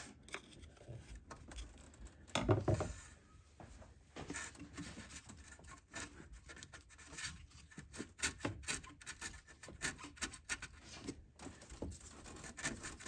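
Rubber coolant hose being pried and worked off its pipe with a screwdriver and locking pliers: irregular scraping, rubbing and small clicks of metal tools, with a louder scrape about two and a half seconds in.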